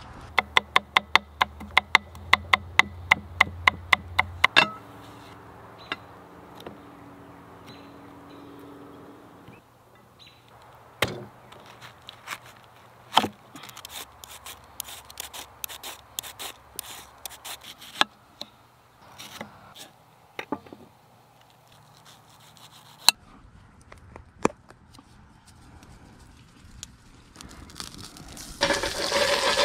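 A fast, even run of sharp clicks for the first four seconds. Then scattered crisp scrapes and snaps as a red cabbage is shredded with a small hand peeler. Near the end, breaded fish fillets start sizzling loudly as they go into hot oil in a cast-iron skillet.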